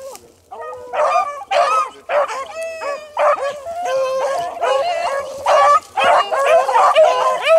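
Several rabbit-hunting dogs barking and howling together, many calls overlapping, after a brief lull at the start.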